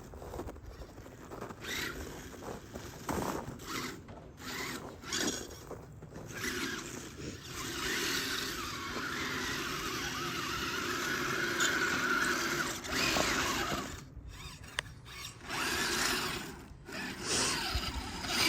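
Electric motor and geared drive of a radio-controlled Tamiya Blizzard tracked snow vehicle whining as it drives, the pitch and level rising and falling with the throttle. It cuts out briefly twice near the end.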